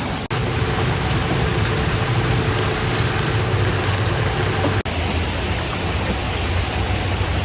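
Rain falling steadily, a loud even hiss, broken by two momentary dropouts where shots are cut together, about a third of a second and nearly five seconds in.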